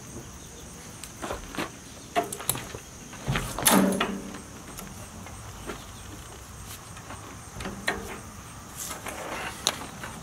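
Buggy shafts and metal harness fittings clinking and knocking as the shafts are fitted into the harness holders on a horse: scattered clicks and knocks, loudest about four seconds in.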